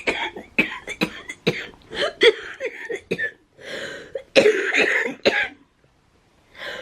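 A woman with cystic fibrosis in a coughing fit: many short, harsh coughs in quick succession, stopping near the end.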